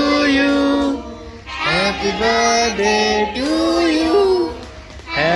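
Singing voices in a song, holding notes and sliding between them, with brief breaks about a second in and again shortly before the end.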